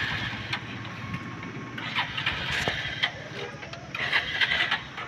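Hero Splendor BS6's small single-cylinder engine running at a steady idle, with an even pulse.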